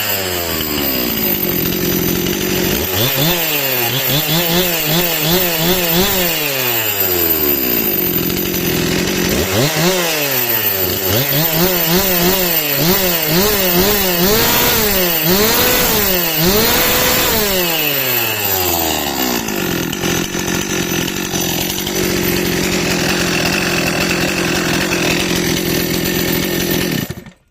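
Stihl MS 261 two-stroke chainsaw revved hard in two spells, its pitch wavering rapidly up and down, dropping back to a steady idle between and after. The sound stops abruptly near the end.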